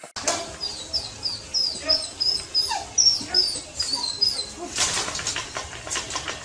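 A dog whining in a quick series of short, high-pitched squeaks, about three or four a second, for several seconds. Near the end the squeaks give way to clicking and rustling.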